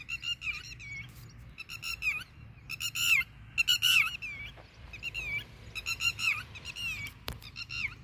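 Red-wattled lapwing giving repeated alarm calls, short bursts of high sliding notes about once a second, in defence of its nest with eggs against intruders.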